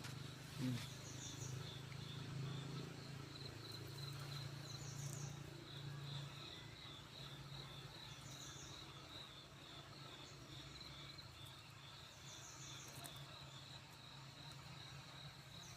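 Insects chirping outdoors in a fast, steady pulsing trill, with a short higher-pitched chirp every three to four seconds. A low steady hum runs underneath, fading after about six seconds.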